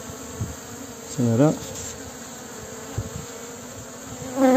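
Honeybees buzzing in a steady hum on a comb frame lifted out of the hive.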